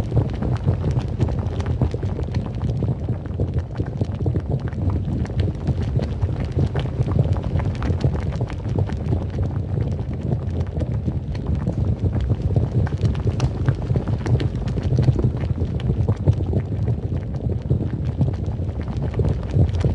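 Volcanic eruption sound effect: a steady deep rumble with constant crackling and popping over it.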